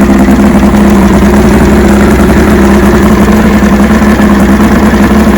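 1989 Mariner 40 hp two-stroke outboard running steadily at idle, now starting and running after its carburetors were cleaned and its fuel filter replaced.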